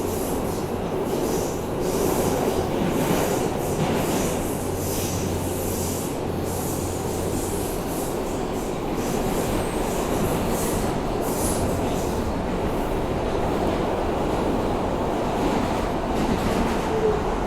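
Ride noise inside a moving R160A subway car: a steady rumble of wheels on rail, with high-pitched wheel squeal coming and going.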